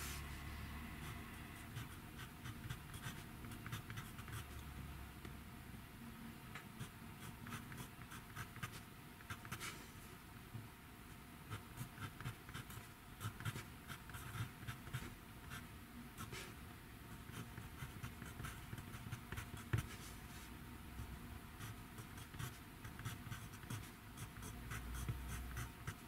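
Pencil writing on notebook paper: faint, quick scratching strokes in irregular runs with short pauses between them.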